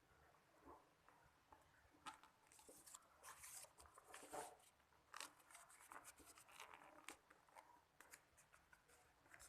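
Faint rustling and crinkling of a sheet of notebook paper being folded and creased by hand, in scattered short crackles.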